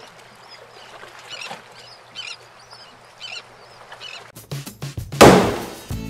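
A faint steady hiss with short high chirps about once a second. Background music starts about four seconds in, followed a second later by a loud splash-like burst.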